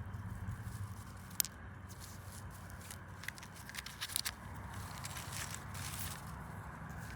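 Scattered light clicks and rustling, with a cluster of small taps about three to four seconds in and a longer rustle a little later, typical of hands sorting small rocks, shells and dry leaves.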